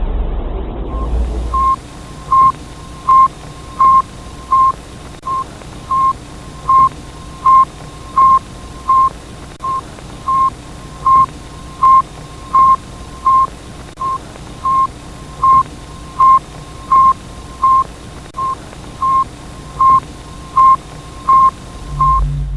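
Sputnik-1's radio beep as received on the ground: a long, even run of short single-pitch beeps, about 1.4 a second, over a steady hiss of radio static. It takes over from a low rumble about two seconds in.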